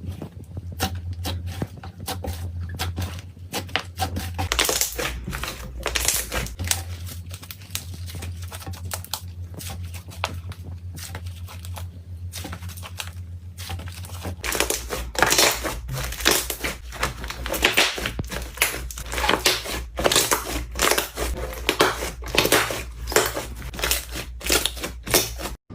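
Slime being squeezed and stretched by hand, giving a dense run of crackling, popping clicks that grows louder and busier about halfway through, over a low steady hum.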